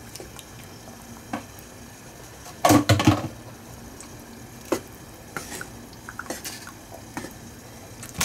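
Spatula scraping and knocking against a metal pan as rigatoni is stirred into a thick tomato meat sauce. Scattered clinks, with a louder cluster of clatters about three seconds in.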